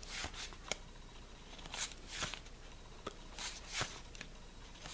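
Trading cards being slid and flipped through one after another by hand, a string of short, soft paper swishes.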